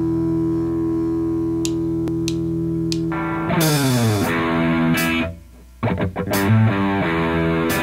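Distorted electric guitar holds a sustained, effects-laden chord, with three evenly spaced clicks. About three and a half seconds in, the full rock band crashes in with drums, bass and guitar, sliding downward in pitch. The band cuts out briefly a little after five seconds, then comes back with stop-start hits.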